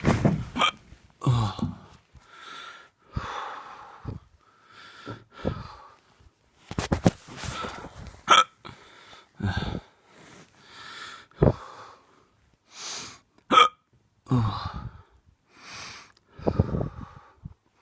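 A drunk person hiccuping over and over, about one hiccup a second, some sharp and clicking, others softer and breathy.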